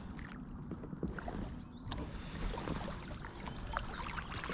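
Kayak paddling: a paddle dipping and pulling through calm water, with small splashes and drips.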